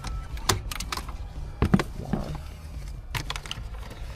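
Plastic dashboard trim on a Vauxhall Grandland being pried off its clips: a series of sharp, irregular plastic clicks and snaps.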